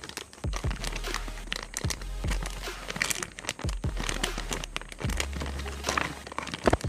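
Packaging crinkling and rustling in a run of short, irregular crackles, as a toy kitchen set is unwrapped.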